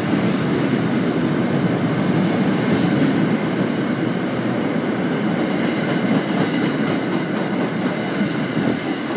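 MBTA commuter rail passenger coaches passing on the track: a steady rumble of wheels on the rails, growing a little quieter near the end as the last cars go by.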